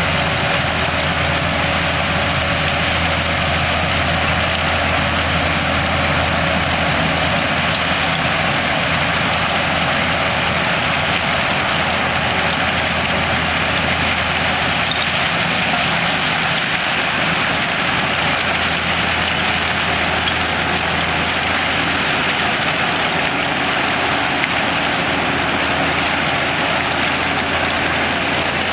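Shantui bulldozer's diesel engine running steadily, with a constant low drone and no clear changes in speed.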